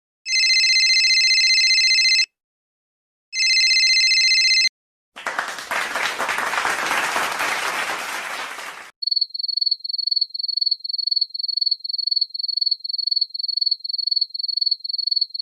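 A telephone ringing twice, then about four seconds of applause, then a fast run of short high beeps, about three a second.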